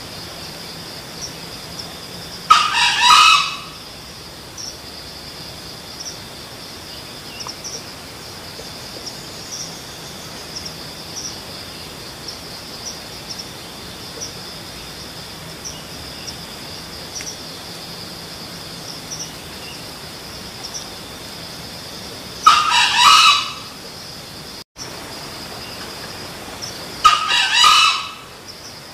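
Junglefowl crowing three times, each crow about a second long: once a few seconds in and twice near the end. A steady, high insect buzz runs underneath.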